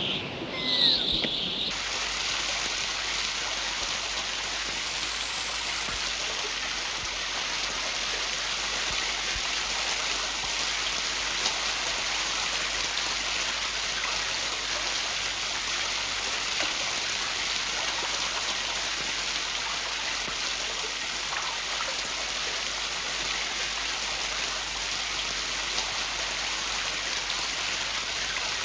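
Steady rushing of falling water from a waterfall on the film soundtrack, starting about two seconds in after a short, high-pitched sound.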